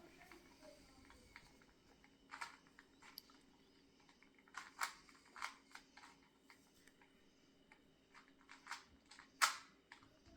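Plastic 2x2 Rubik's cube being turned by hand: a string of soft, irregular clicks as the layers snap round, the loudest one near the end, over a faint steady hum.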